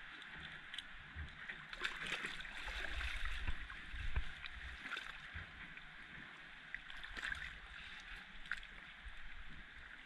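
Shallow seawater sloshing and lapping against rocks, with a cluster of louder small splashes and wet handling noises between about two and five seconds in while a lionfish is being gutted by hand.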